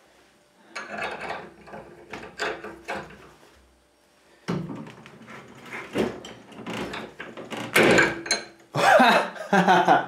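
Cheap brass padlock being forced in a bench vise with a steel bar levered through its shackle: irregular metal clicks, knocks and scraping, growing denser and louder toward the end as the shackle is wrenched against its locking bolt until the bolt tears out and the lock opens.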